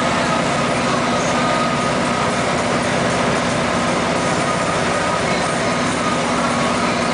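A tugboat's engine running steadily at speed, mixed with the rush of the churning wake behind it.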